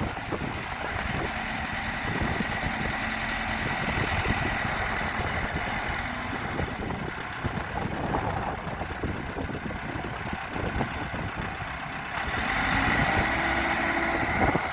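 Diesel engine of a 2001 JCB 4CX backhoe loader running, getting louder about twelve seconds in.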